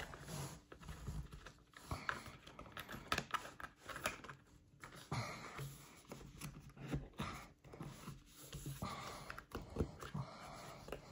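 Stiff cardboard game pieces being slotted together by hand: small irregular taps, clicks and scrapes as a divider is pushed into the slots of a cardboard tray.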